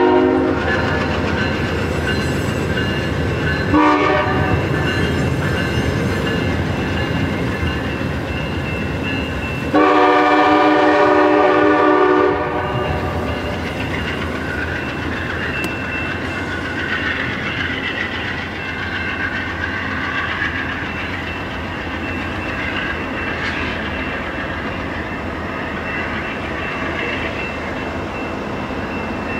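Passenger train coaches rolling past on the rails with a steady clatter, while a train's multi-tone air horn sounds three times: the end of a blast at the start, a short toot about four seconds in, and a longer blast of about two and a half seconds about ten seconds in.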